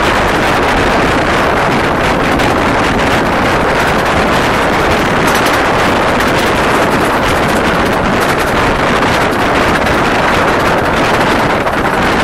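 Steady rush of wind on the microphone at the window of a moving 15-inch-gauge miniature railway carriage, mixed with the train's running noise.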